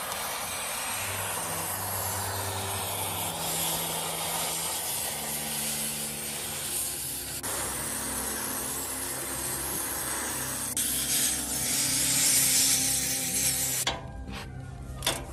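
Steady hissing and scraping of work on rusted steel, including a gas torch flame heating a seized nut on the rusted wheel hub. Near the end this gives way to a run of sharp metallic clicks as a socket wrench is worked on the nut.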